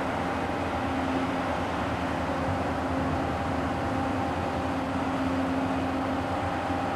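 Steady mechanical drone of construction machinery: an even rushing noise with a constant low hum running through it and no distinct events.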